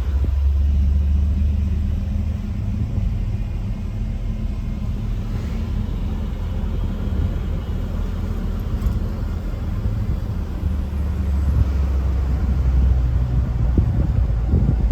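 A car driving: a steady low engine and road rumble, swelling slightly a couple of times.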